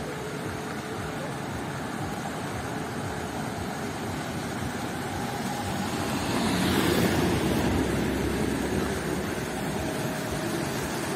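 Steady rushing noise of a small stream running down a stone channel. A louder whoosh swells and fades about six to eight seconds in.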